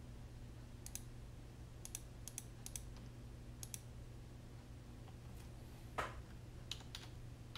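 Scattered computer keyboard keystrokes and mouse clicks, with a quick run of three keystrokes a little after a second in, over a faint steady low hum.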